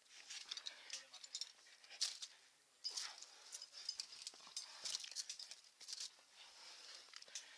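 A rock climber's hands and shoes scraping and scuffing on rock, with light clinks of climbing gear: quiet, irregular scrapes and clicks, the sharpest about two seconds in.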